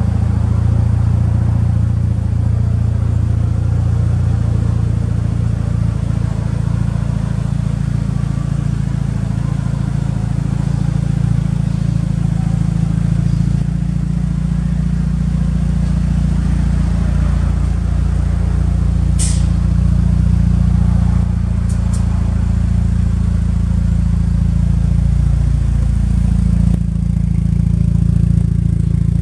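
Mitsubishi Lancer Evolution VIII MR's G-Force built 4G63 turbocharged inline-four idling steadily, heard through its large single-tip aftermarket muffler. The exhaust note grows louder near the end, and there is a light click about two-thirds of the way through.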